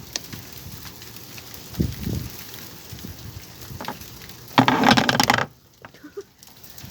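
Hailstones falling and ticking on hard surfaces, a steady crackling patter with scattered sharper hits. A loud rush of noise lasting under a second comes about two-thirds of the way in, after which the sound drops almost to quiet for about a second.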